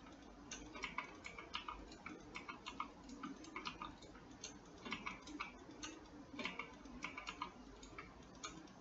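Faint, irregular clicking of a computer mouse and keyboard, a couple of clicks a second, as vertices are selected and faces filled in 3D modelling software.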